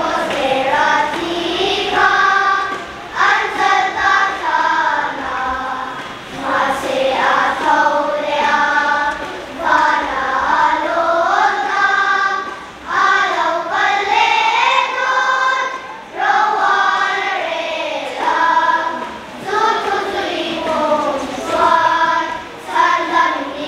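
Children's choir singing together, in sung phrases with short breaks between them.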